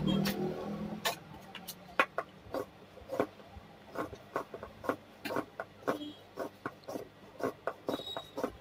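An industrial sewing machine's motor hum dies away at the very start. Then come scattered light clicks and crackles, irregularly spaced, as a stiff sewn seat-cover strip is pulled out from under the presser foot and handled.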